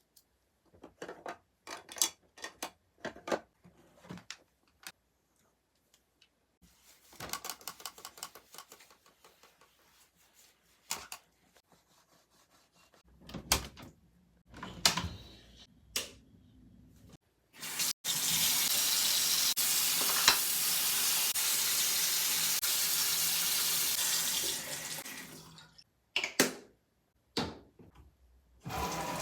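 A water tap running into a sink for about seven seconds, steady and even, then turned down and off. Before it come a string of small clicks and knocks, and a few more follow.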